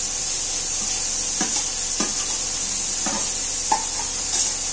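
Chopped onions frying in ghee, sizzling steadily in a pan, while grated paneer is scraped off a steel plate into it with a metal spatula, giving a few short scrapes.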